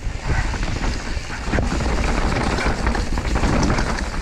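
Pyga Hyrax enduro mountain bike rolling fast down a rough, rocky trail: the tyres crunch over loose stones and roots and the bike rattles, with a steady low rumble and many small knocks throughout.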